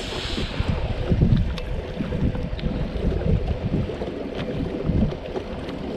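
Wind buffeting the microphone in uneven low gusts, over a faint steady hum and a few light clicks.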